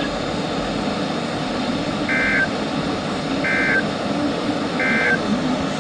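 Emergency Alert System digital data tones: three short two-tone warbling bursts about 1.4 s apart, the end-of-message signal that closes an alert, over a steady background hiss.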